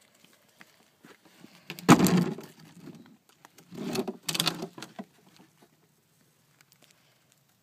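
Two bursts of scuffling and knocking as catfish are picked up off the pavement, one about two seconds in and a longer one about four seconds in.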